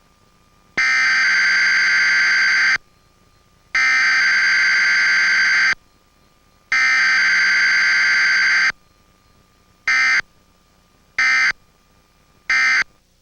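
Harsh electronic alarm tone from an emergency alert broadcast. It sounds three long blasts of about two seconds each, then three short beeps about a second and a half apart.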